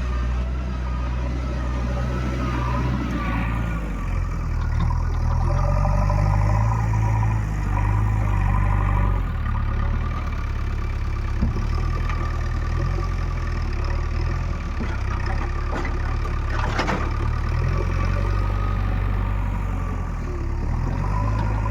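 JCB 3DX backhoe loader's diesel engine working hard, its pitch rising and falling with load, the engine note picking up about four seconds in. A few sharp knocks sound over it, the clearest about two-thirds of the way through.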